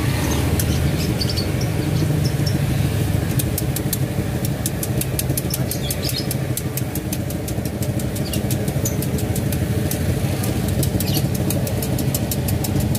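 An idling engine's steady low rumble, with faint crackling of hot oil as corn dogs deep-fry in a wok; the crackles come thick and fast from about three seconds in to near the end.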